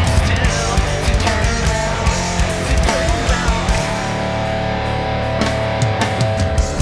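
Live rock band playing with distorted electric guitar, bass and drums. A little over halfway through, the cymbals and drums thin out, leaving held guitar notes over the bass with only a few scattered hits.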